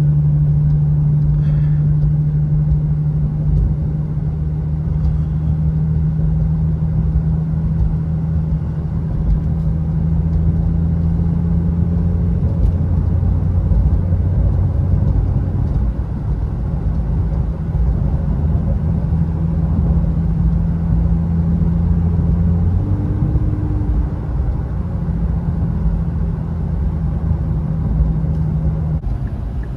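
Cabin drone of an Infiniti Q50's 3.7-litre V6 and its tyres while cruising on a snowy road: a steady low hum whose pitch steps a few times, briefly around the middle and again near 23 seconds in.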